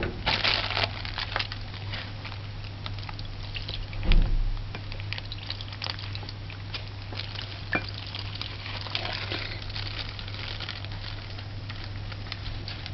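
Milk poured into a bowl of cake batter, with light knocks of a measuring cup and bowl and one louder knock about four seconds in. A steady low hum runs underneath.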